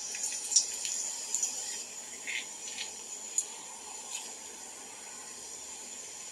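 Cumin seeds sizzling in oil in an iron kadhai: a steady hiss with a few small pops and crackles in the first few seconds.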